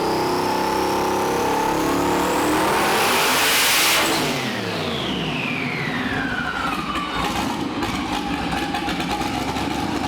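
Twin-turbocharged LS V8 making a full-throttle pull on a hub dyno, at 15 psi of boost: the revs and a high turbo whine climb until about four seconds in. Then the throttle closes, and the revs and the whine fall away as the engine coasts down.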